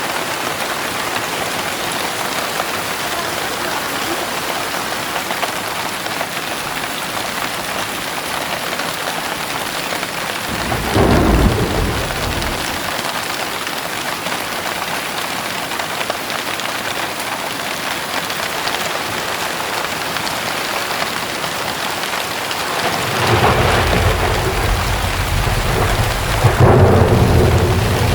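Heavy rain pouring steadily. Thunder rumbles briefly about ten seconds in, and a longer roll of thunder builds over the last five seconds.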